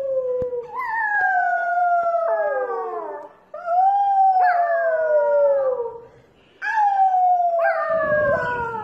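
Corgi puppy howling: three long howls, each starting high and sliding slowly down in pitch, with short breaths between them.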